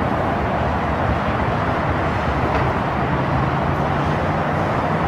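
Steady road traffic noise from cars passing on a multi-lane road, with tyre and engine noise blending into a continuous wash. A low engine hum joins about three seconds in.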